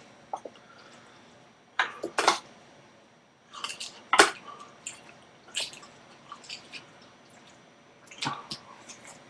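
Someone eating macaroni and cheese with a spoon from a metal pot: wet chewing and lip-smacking, with sharp spoon clicks against the pot, in short separate bursts every second or two.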